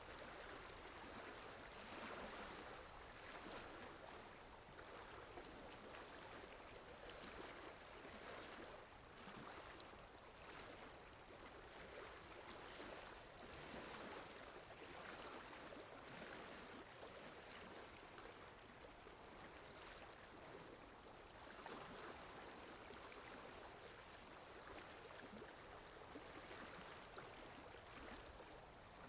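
Faint, steady rainfall, an even hiss of falling rain with no separate drops or other events standing out.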